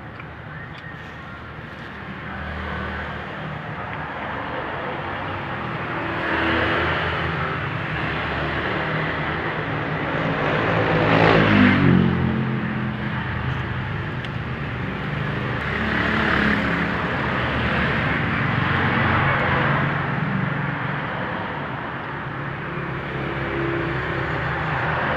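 Road vehicles passing by, their engine noise swelling and fading several times; the loudest passes close about halfway through, its engine pitch falling as it goes by.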